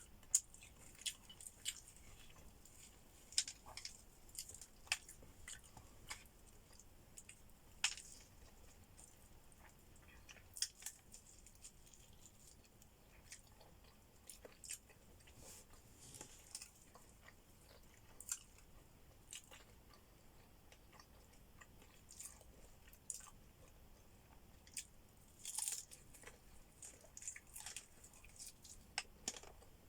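Faint, close-miked chewing and biting of food, with irregular crisp crunches and small wet mouth clicks.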